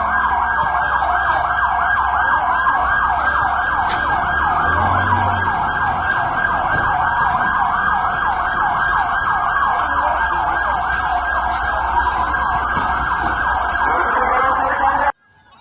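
Emergency vehicle sirens: one in a rapid yelp, with a slower rising-and-falling wail sounding under it, over a low engine rumble. The sound cuts off abruptly near the end.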